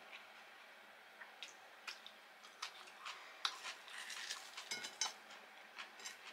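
Scattered light clicks and clinks of eating utensils against dishes, coming thicker about three to five seconds in.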